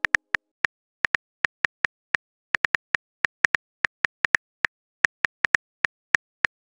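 Phone keyboard click sounds from a texting app as a message is typed letter by letter: short, sharp taps, about four or five a second in an uneven typing rhythm.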